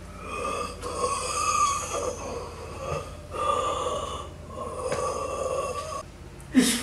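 A person making wordless, drawn-out vocal noises in about four held stretches of roughly a second each.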